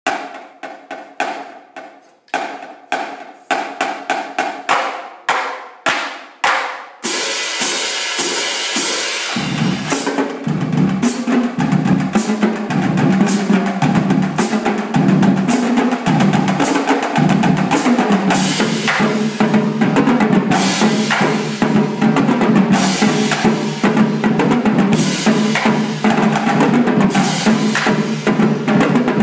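Marching drumline of snare drums, tenor drums, bass drums and cymbals playing a cadence. It opens with single, evenly spaced hits for about seven seconds, then breaks into dense, fast snare playing, with the pitched bass drums joining about ten seconds in.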